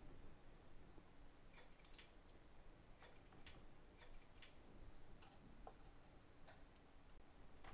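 Faint, scattered light clicks and taps from hands handling parts and test leads on a workbench, about a dozen in all, thickest in the first half, over near silence.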